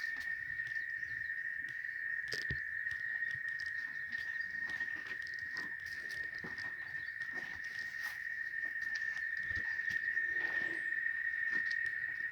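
Cicadas singing in one steady, unbroken high drone, with scattered light ticks and taps over it.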